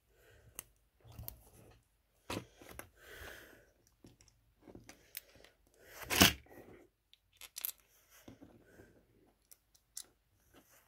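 Small plastic LEGO pieces being handled and fitted into a small brick-built safe: scattered light clicks and rustling of plastic against plastic, with a louder knock about six seconds in.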